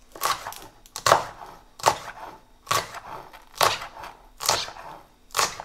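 A large kitchen knife chopping fresh green chillies on a wooden cutting board: about seven even, sharp strokes a little under a second apart.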